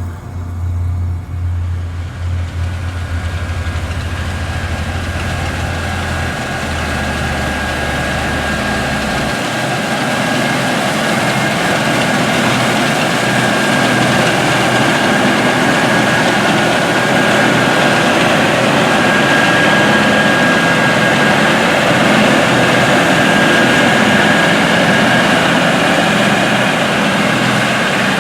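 Heavy harvest machinery running steadily: a dense mechanical drone with a thin high whine, growing louder over the first dozen seconds and then holding level.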